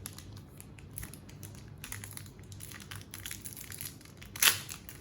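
Foil booster-pack wrapper crinkling in irregular crackles as it is handled and torn open, with one louder sharp crackle near the end.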